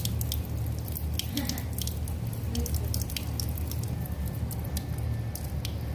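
Thin stream of water running from a tap, with many irregular drips and splashes as a cat laps at the stream and paws through it, over a steady low hum.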